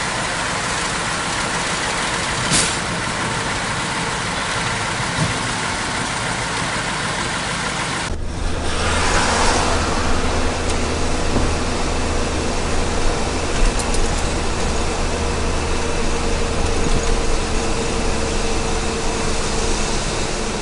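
Diesel truck engine running steadily, with one sharp click about two and a half seconds in. After an abrupt cut about eight seconds in, a steady low engine drone with road noise from a vehicle driving along.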